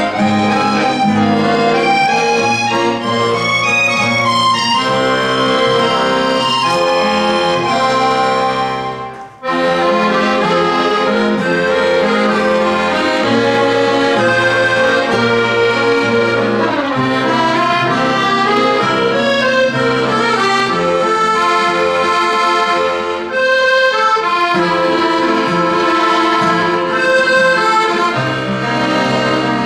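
Piano accordion and acoustic guitar playing a live duet, the accordion most prominent with sustained chords and melody over the guitar. The music stops briefly about nine seconds in, then picks up again.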